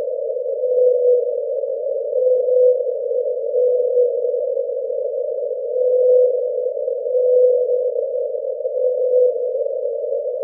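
Hydrophone recording of the 52-hertz whale, sped up so its calls are audible: a steady hiss with short, even-pitched calls repeating every second or so.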